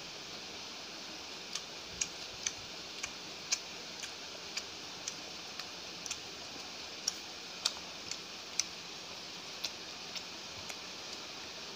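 Eating sounds of a person chewing porota with chicken curry: irregular small clicks and smacks, about one or two a second, over a steady hiss.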